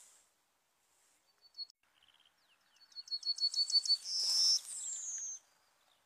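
Yellowhammer singing: a few thin notes and slides, then about three seconds in a quick run of short repeated notes that ends in a loud held higher note and a falling slur. A brief hiss fades out at the very start.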